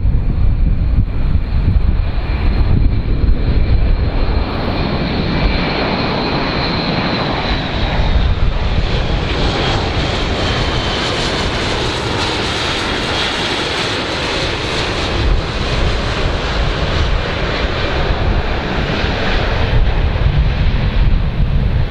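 Airbus A400M Atlas's four turboprop engines and eight-bladed propellers droning steadily as the transport aircraft flies low. A high whine falls in pitch about seven seconds in, and the sound grows brighter as the aircraft comes close.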